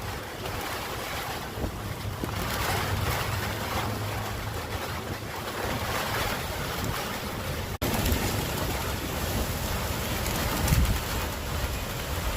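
Strong gusty wind buffeting the microphone with a heavy low rumble, swelling and easing in gusts. It cuts out for an instant about eight seconds in.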